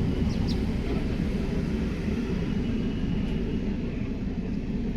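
Steady low rumble with two brief, faint high bird chirps about half a second in.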